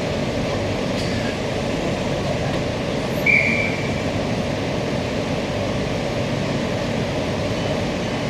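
Steady hum of a stationary Queensland Rail electric multiple unit's onboard equipment, heard from inside the carriage with the doors open, with one short high chirp about three seconds in.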